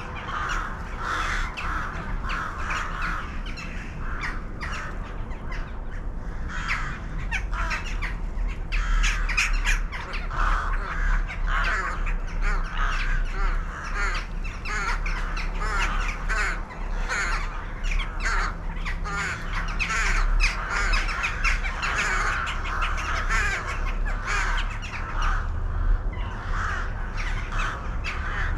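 A large flock of birds calling without a break, many short calls overlapping at once, over a steady low rumble.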